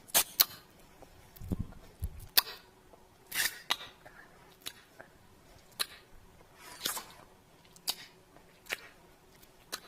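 Kissing lip sounds: a string of short lip smacks, roughly one a second at irregular spacing, some a little longer and softer than others.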